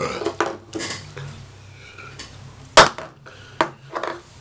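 A beer can being handled: a series of sharp clicks and knocks with some rustling between them, the loudest knock a little after the middle.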